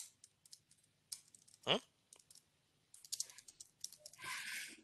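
Typing on a computer keyboard: irregular key clicks, thickening into a quick run of keystrokes near the end. About 1.7 s in comes one short, louder sound that sweeps down in pitch.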